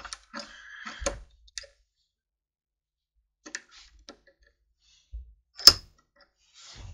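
Scattered metal clicks and clinks as a small piece of cut-off galvanized bolt is handled with pliers at a steel bench vise, with a brief scrape near the start and one sharper, louder clink near the end.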